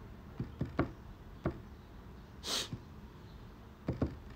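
A person's short, sharp sniff through the nose about halfway through, with a few soft clicks scattered before and after it.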